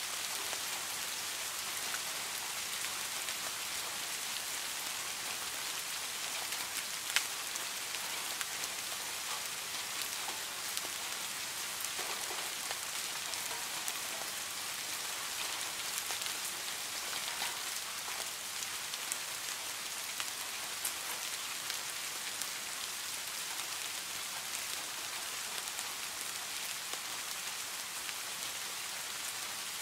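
Steady rain falling on pine branches: an even hiss scattered with small drip ticks, one sharper tick about seven seconds in.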